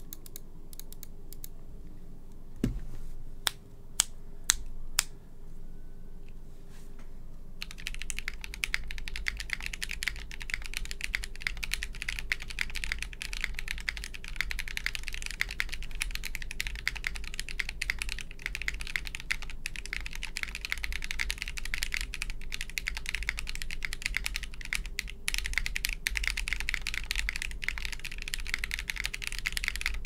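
Fast, continuous typing, starting about eight seconds in, on a KBDfans Anode keyboard. The keyboard has an aluminium plate, an o-ring mount, lubed KTT Wine Red linear switches and GMK Darling keycaps. Before the typing starts there is a dull thump and four separate sharp clicks.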